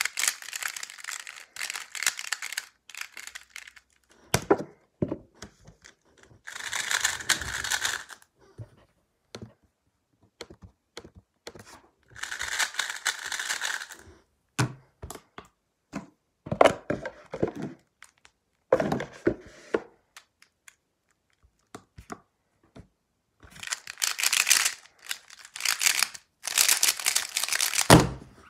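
Plastic Square-1 puzzle being turned fast by hand: bursts of clicking and clacking twists and slices separated by short pauses, ending near the end in a rapid run of turns and a thump as the puzzle is put down and the timer stopped.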